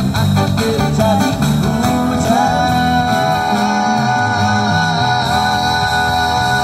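Live band playing a song with strummed acoustic guitar and drums. About two seconds in, a singer starts holding one long note.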